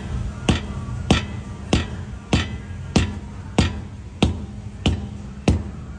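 Background music with a steady beat, a sharp knock about every 0.6 seconds over a low sustained drone.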